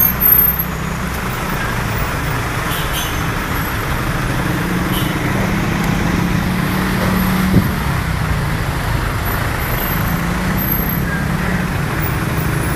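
Engine and road noise of a songthaew (baht bus) pickup moving slowly through street traffic, heard from its open rear bench, a steady low rumble. A single short knock about halfway through.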